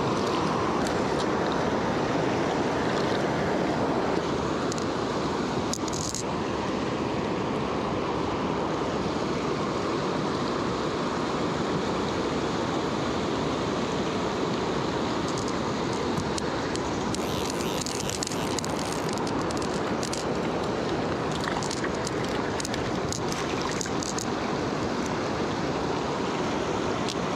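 River water rushing steadily over a rocky riffle, with a few brief higher splashes and trickles now and then.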